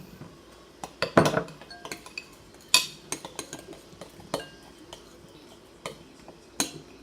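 A utensil stirring slime in a bowl, clinking and knocking against its sides in irregular strokes, with a few louder knocks.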